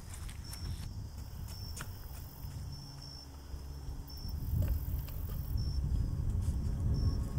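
Crickets chirping in short, repeated high chirps over a low rumble that swells about four and a half seconds in.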